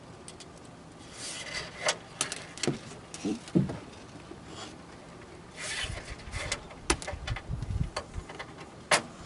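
Handling noise from the license plate flipper's cables and small parts being worked by hand: scattered clicks, taps and rubbing in two spells, with a brief pause in the middle.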